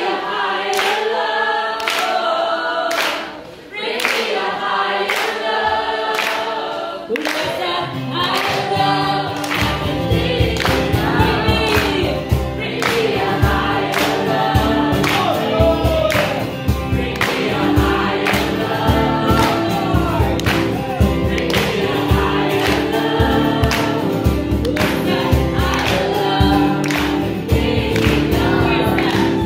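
Live upbeat worship song: a woman singing lead into a microphone with a group singing along, an acoustic guitar strumming and hand claps on the beat. A deeper bass comes in about eight seconds in.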